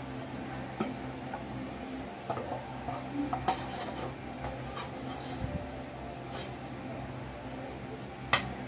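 Metal cooking utensil clinking and scraping against the pan and an enamel bowl as fried pork cubes are moved into the bowl, in scattered separate clinks with the sharpest one near the end. A steady low hum runs underneath.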